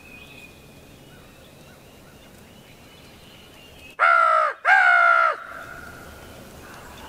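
Two loud, drawn-out crow caws in quick succession about four seconds in, with faint birdsong behind.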